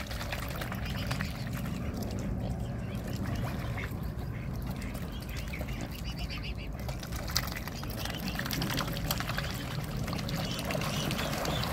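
Swans and cygnets feeding in shallow water: continuous splashing and dabbling, with many small wet clicks from their bills.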